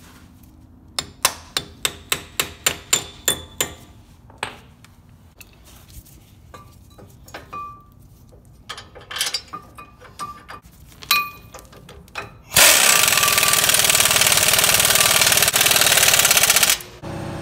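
A ball-peen hammer taps the steel wheel-bearing dust cap onto the hub, about a dozen quick metallic taps. A few scattered metal clinks follow. Then, after about twelve seconds, a pneumatic impact wrench runs steadily on a brake caliper bolt for about four seconds and stops.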